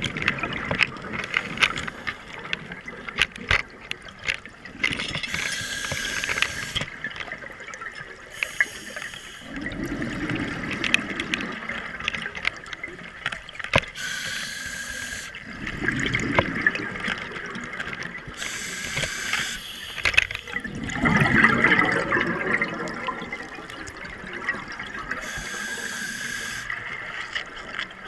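Scuba breathing heard through the water: hissing inhales through the regulator every several seconds, each followed by a low bubbling rush of exhaled air, with small sharp clicks scattered throughout.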